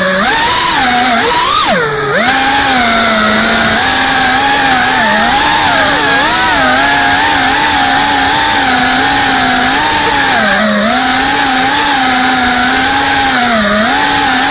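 FPV racing quadcopter's brushless motors and propellers buzzing loudly, the pitch wavering up and down with the throttle as it flies. About two seconds in, the pitch drops sharply as the throttle is cut, then climbs straight back.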